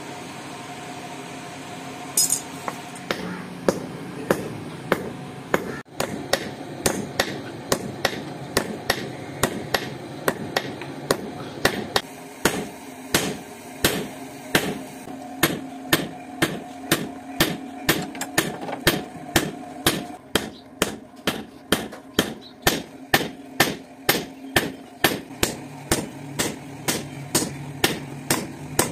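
Hammer blows on red-hot steel over an anvil, a regular beat of about two strikes a second after a few scattered first blows. The hot head of an old claw hammer is being flattened and drawn out into an axe blade. A steady hum runs underneath.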